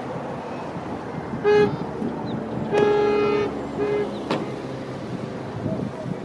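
Vehicle horn sounding three times: a short toot, a longer one about a second later, then another short toot. Steady wind noise lies underneath.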